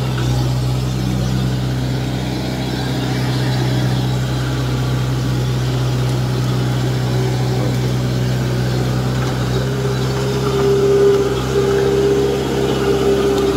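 Kubota DC105X combine harvester's diesel engine running steadily as the tracked machine drives along, with a crisp exhaust note. A higher steady whine joins the engine sound about ten seconds in.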